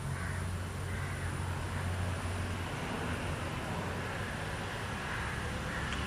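Steady outdoor background noise: a constant low motor hum, as of distant traffic, under an even hiss.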